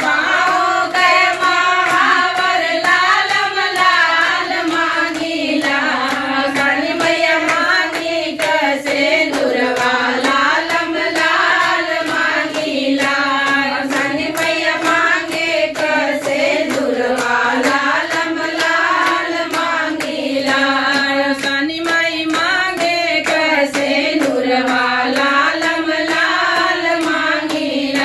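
A group of women singing a devotional folk song to the goddess (devi geet) together, keeping time with steady hand claps.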